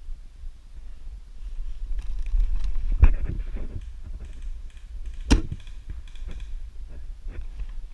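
Two sharp shots from a Tokyo Marui L96 AWS spring bolt-action airsoft sniper rifle, about two seconds apart, the second the louder, with small clicks and rustle of the rifle being handled around them.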